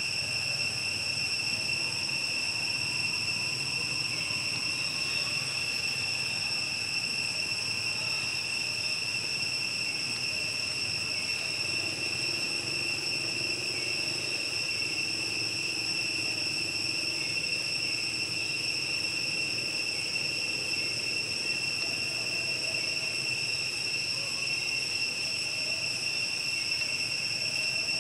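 Steady, high-pitched insect drone: one unbroken shrill tone with fainter overtones above it.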